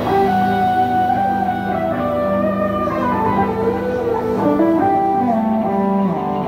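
A live band playing an instrumental passage: a guitar melody with sliding notes over acoustic guitar and bass guitar.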